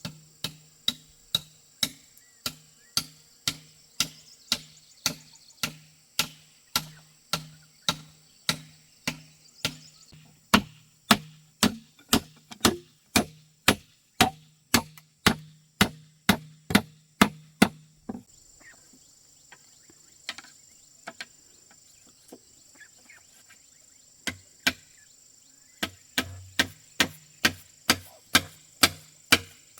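Repeated blows from a hand tool, such as chopping or hammering, at about two a second. The blows pause for several seconds about two-thirds of the way through, then start again. A steady high insect drone runs behind them.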